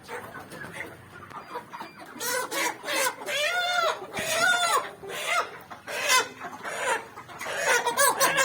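Chickens calling: a run of loud squawks and clucks starting about two seconds in, with one longer, arching call near the middle.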